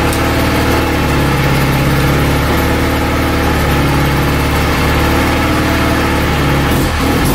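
Mazda RX-7 FC's 13B rotary engine idling steadily.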